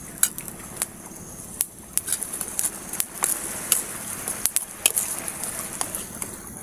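Wood campfire crackling, with sharp, irregular pops scattered through the whole stretch, over a steady high-pitched background drone.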